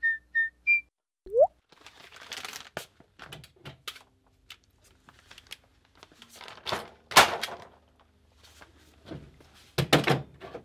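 Three short electronic beeps and a quick rising blip at the start, then handling noise: a cardboard sign knocked and rustled against a tool pegboard, with scattered thuds and clicks, the loudest about seven seconds in and another cluster near the end.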